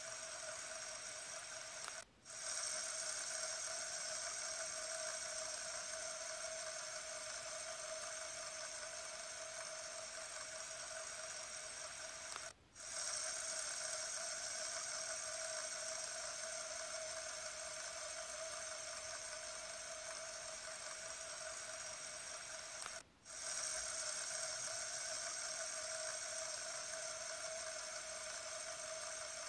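Fidget spinner whirring steadily as it spins, an even hum with a high ring over it. The sound cuts out briefly three times, about ten seconds apart.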